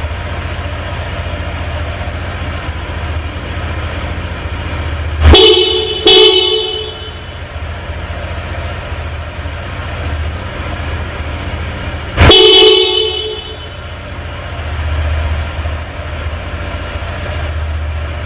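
A pair of Bosch FC2 snail-type electric horns, wired through a relay, sounds twice in quick succession and then once more for a longer blast. Under the horns there is a steady low running sound from the motorcycle's idling engine.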